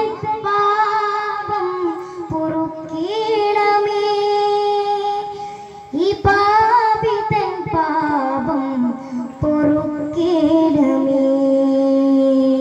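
A high voice singing a slow melody unaccompanied, in long held notes that slide and waver between pitches. It sings about four phrases, with short breaks between them.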